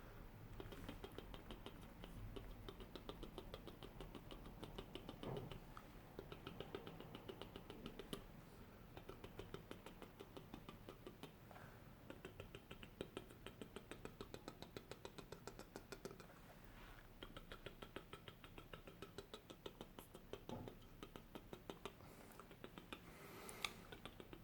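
Faint, rapid soft clicking close to the microphone, many clicks a second with a few short pauses: an ASMR trigger sound.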